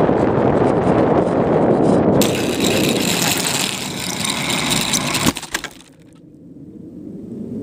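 Rushing wind and the motor of a radio-controlled plane on the plane's own camera microphone, with a brighter hiss joining about two seconds in. A few knocks come just after five seconds in, and the noise suddenly falls away to a much quieter low rumble.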